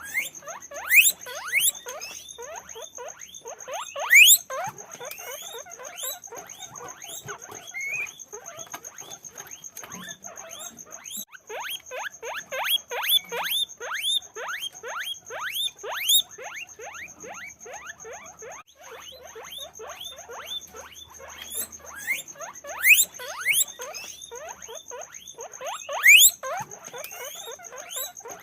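Many guinea pigs squeaking together: a dense, continuous chatter of short rising squeaks, with a few sharp, loud squeals standing out. A steady high-pitched whine runs faintly underneath.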